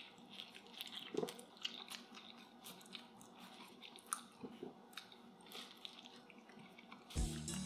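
A man biting into and chewing a slice of thin-crust pizza, with irregular small clicks and crackles of the crust in his mouth. Background music with a beat comes in near the end.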